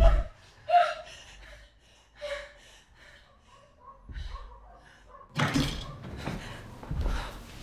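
A man's roar cuts off right at the start, followed by a woman's short frightened gasps and sobs. Later comes rustling with soft low thumps as she drops down onto a sofa.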